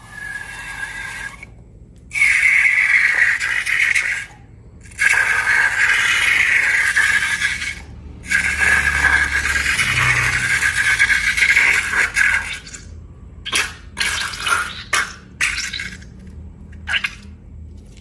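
Liquid pouring in several long streams with short breaks between them, then a handful of short wet clicks and squelches near the end, as when slime ingredients are emptied out of balloons.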